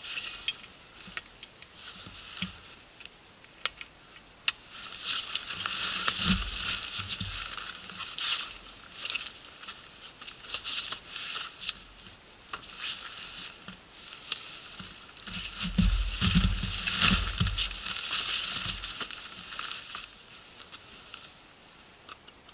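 Nylon rustling and crinkling as gear is stuffed into an Osprey Volt 75 backpack and its straps and buckles are worked, with scattered sharp clicks and a few dull low thumps around six and sixteen seconds in.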